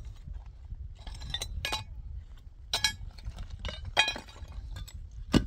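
A series of sharp metallic clinks, about five, irregularly spaced, each with a brief ringing tone; the last one, near the end, is the loudest.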